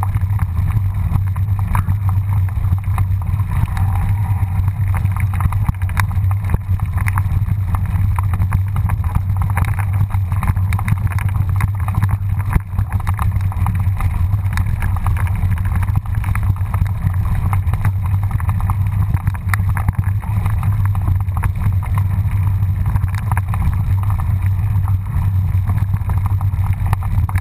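Mountain bike rolling down a rough dirt and stone trail, heard through a bike-mounted action camera: a steady low drone of wind and vibration rumble, with constant small rattles and clicks from the bike and trail.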